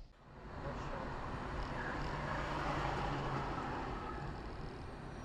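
Steady engine and road noise of a moving car, heard from inside the cabin, with a low hum throughout.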